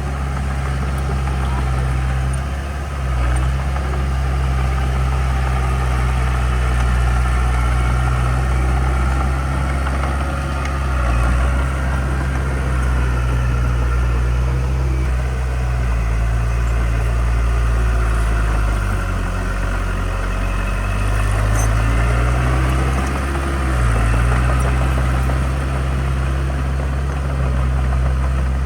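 Diesel engine of heavy earthmoving equipment running loud and steady, its engine speed dipping and picking up again several times.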